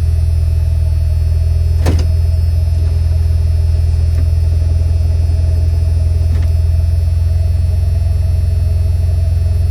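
Ford F-150 engine idling steadily, heard from inside the cab with the AC blower running, while the engine carries an electrical load from the freshly rebuilt alternator. A single short click about two seconds in.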